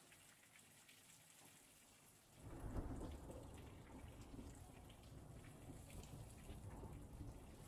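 Heavy downpour hissing steadily. About two and a half seconds in, a sudden low rumble of thunder starts, swells briefly and keeps rolling.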